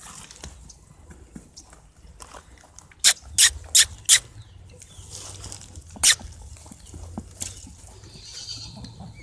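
Miniature horse stallion running loose, giving a quick run of four sharp snorts about three seconds in and one more a couple of seconds later.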